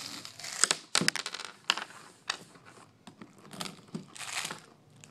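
A man gulping from a plastic drink bottle, the bottle crinkling and crackling in his grip, with clicks and short breaths in between.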